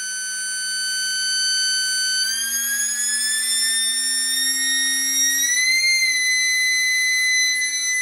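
3D-printed resin tornado siren spun by a small brushless race-quad motor, sounding a steady multi-tone wail. About two seconds in its pitch climbs as the throttle is pushed up, levelling off near six seconds at a higher, slightly louder note as it approaches full throttle.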